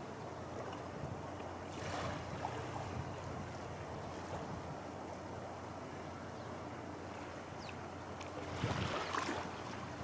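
Small waves washing onto the beach, with steady wind on the microphone. The wash swells twice, about two seconds in and again near the end.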